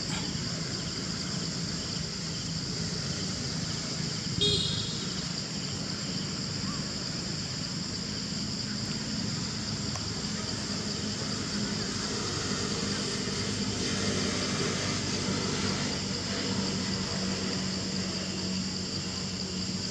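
Outdoor background noise with a steady high hiss, a short sharp sound about four and a half seconds in, and a low engine-like hum that swells in the second half.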